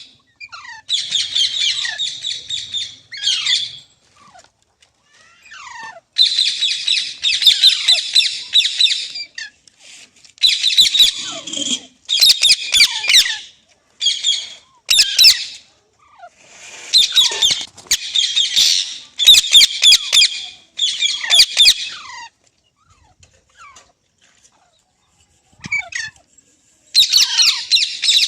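Green parrot screeching in harsh, rasping squawks, in about a dozen loud bouts of one to three seconds each, with short pauses between them and a longer pause before a last bout near the end.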